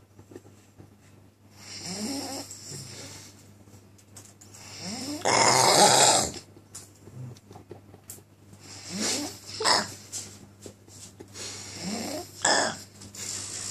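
Loud snoring: four snores about three to four seconds apart, each starting with a rising rasp. The one about halfway through is the loudest.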